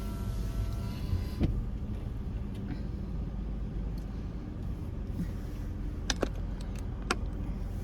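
Car engine idling, heard from inside the cabin as a steady low rumble, with a few sharp clicks: one about a second and a half in and two near the end.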